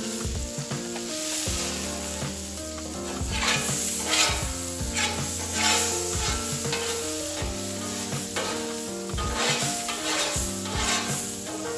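Metal spatula scraping across a hot Blackstone steel griddle in repeated strokes, over a steady sizzle of steam and melting butter on the hot plate.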